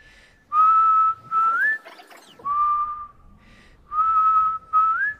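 A person whistling a tune: five short phrases of held notes, several ending in an upward slide, with brief pauses between them.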